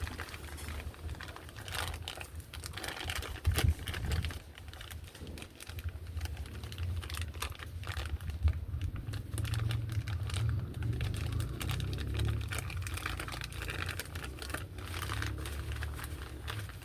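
Quick, irregular clicking and light tapping of hand and tool work on washing-machine parts, over a low steady hum.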